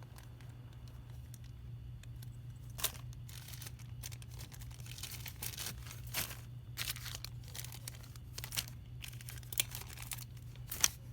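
Plastic packaging bags rustling and crinkling as parts are sorted, with scattered small clicks and one sharper click near the end, over a steady low hum.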